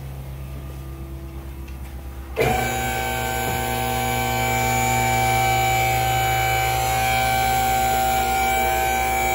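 Electric hydraulic pump motor of a two-post car lift starts about two seconds in and runs with a steady whine as the lift raises the car, cutting off abruptly at the end. Before it starts there is only a low steady hum.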